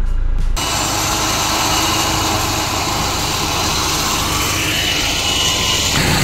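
Off-road 4x4's engine running with a steady low hum. About half a second in, a louder, dense rushing noise starts abruptly and goes on steadily.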